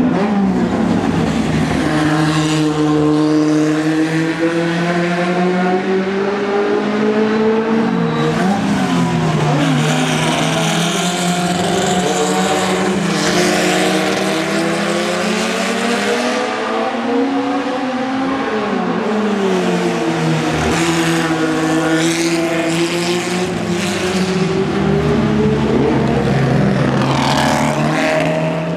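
Historic Formula Junior single-seater race cars racing past. Several engines are often heard at once, their notes rising and falling over and over as the cars change gear and go by.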